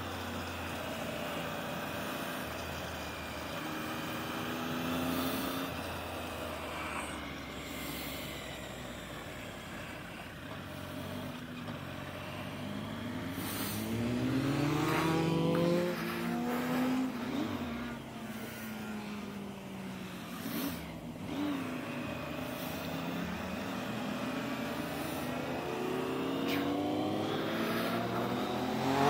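Motorcycle engine heard from the rider's helmet on a race track, running through the laps with wind noise. Its pitch climbs as it accelerates about halfway through, drops as it slows, and climbs again near the end.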